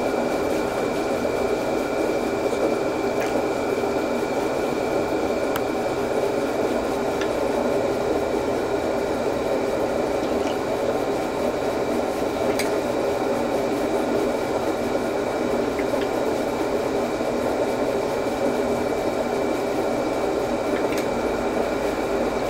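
Deba knife blade stroked back and forth on a wet whetstone, giving a steady wet grinding hiss with a few faint clicks, over a constant faint high machine whine.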